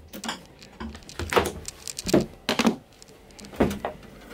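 Wooden galley drawers and cabinet lids being opened and shut: a series of short knocks and sliding thumps, about half a dozen spread across a few seconds.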